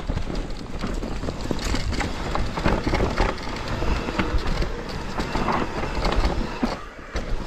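Enduro mountain bike clattering down a rough, steep trail: a steady rumble of tyres over rough ground, broken by dense irregular knocks and rattles from the wheels, chain and frame.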